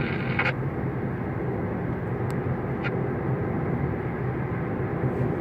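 Steady engine and road drone heard from inside a moving vehicle, with two faint ticks about halfway through.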